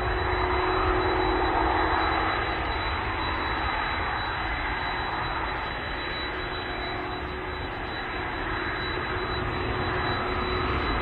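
Boeing 757-236 airliner's twin Rolls-Royce RB211 turbofans at take-off power as it lifts off and climbs away: a steady jet rush with a faint steady hum.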